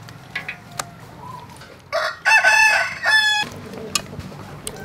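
A rooster crowing once, about two seconds in, a single call lasting about a second and a half. A few faint clicks sound around it.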